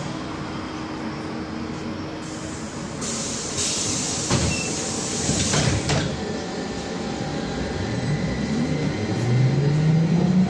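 Inside a VMZ-5298.01 trolleybus: a loud hiss of compressed air lasts about three seconds. Then, from about two-thirds of the way in, the electric traction motor's whine rises steadily in pitch as the trolleybus gathers speed.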